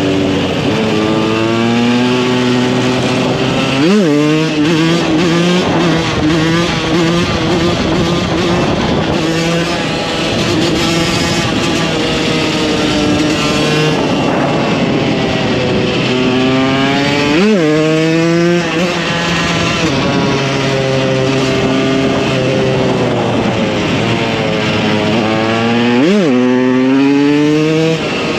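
KTM 125 EXC two-stroke single-cylinder engine running under riding load, its pitch climbing and falling with throttle and gear changes. Three times it gives a sharp, quick rev that shoots up and drops back: about four seconds in, near the middle, and near the end.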